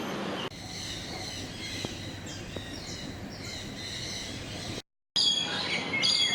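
Birds chirping and calling, a run of short high notes with quick sweeps in pitch, over a steady hiss of background noise. The sound drops out completely for a moment about five seconds in, then the calls resume.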